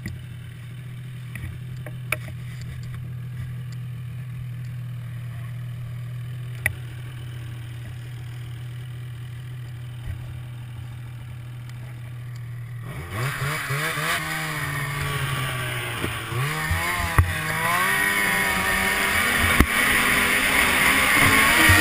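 Ski-Doo snowmobile engine idling steadily, then about two-thirds of the way through it is throttled up, its pitch rising and falling as the sled accelerates away along the trail.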